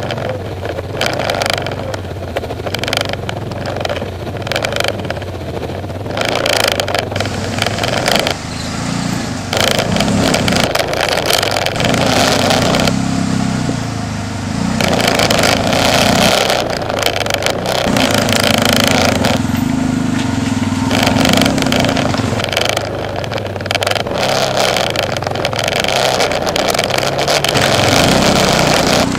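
Yamaha Rhino side-by-side's engine working up a rocky trail climb, the revs rising and falling with the throttle.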